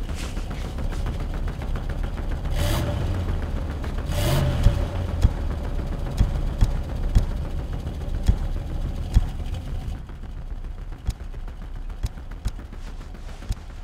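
Pickup truck engine rumbling, with two louder swells about three and four and a half seconds in, over a run of sharp irregular cracks and knocks that thin out in the last few seconds.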